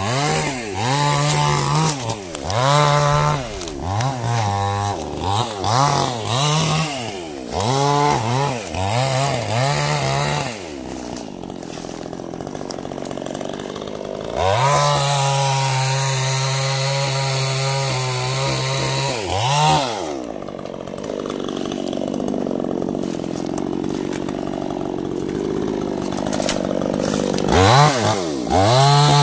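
Chainsaw cutting sengon wood, its engine revved up and down over and over for the first ten seconds. It then drops to a lower run, is held high and steady for about five seconds midway, falls back low, and revs up and down again near the end.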